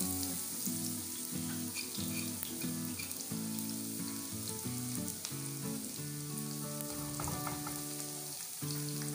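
Cumin seeds, chopped garlic and ginger, and dried red chillies sizzling steadily in hot oil as a tadka fries, with background music of held notes underneath.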